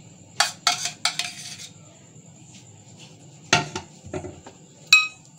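Metal spoon clinking and scraping against the bowl and glass dish as ice cream is scooped and dropped onto cake: a handful of sharp clinks, the last one near the end ringing briefly.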